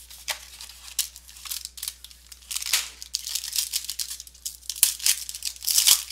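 Trading-card box packaging and foil pack wrapper being torn open by hand: irregular crinkling and tearing, busier and louder in the second half.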